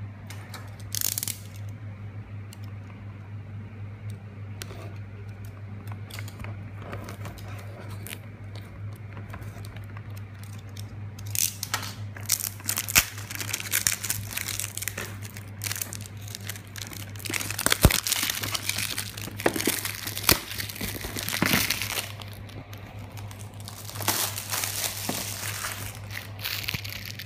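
Clear plastic shrink-wrap being torn and peeled off a cardboard product box, crinkling and crackling. It is sparse at first and turns dense and loud from about eleven seconds in.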